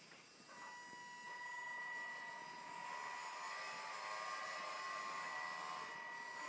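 Electric motor and gearbox of an RC scale Land Rover Defender 110 crawler whining as it drives across the floor. The steady high whine starts about half a second in and grows louder as the truck approaches.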